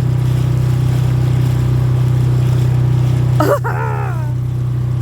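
Mercury outboard motor running steadily as the inflatable boat moves under way, its level dropping slightly about three and a half seconds in. A short falling cry, like a voice, sounds over it at the same moment.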